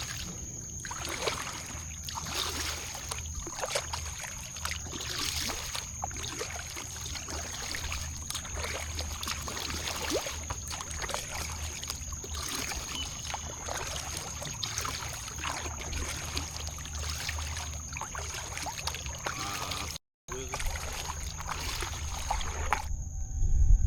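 Kayak paddle strokes: the blade dipping and pulling through the water every second or so, with water trickling off it, under a low wind rumble on the microphone.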